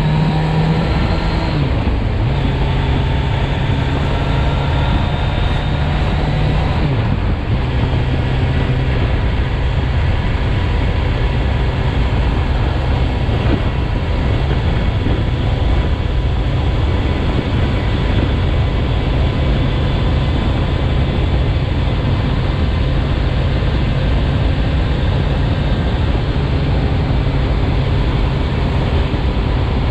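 A Kawasaki Z900, A2-restricted to 35 kW, with its inline-four engine rising in pitch under acceleration. The pitch drops at upshifts about a second and a half in and again about seven seconds in. It then runs at a steady cruise under a dense, steady rush of wind noise.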